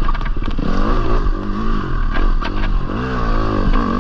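Off-road dirt bike engine, revving up and falling back again and again as it is ridden over rough trail, with a few sharp knocks and clatter from the bike.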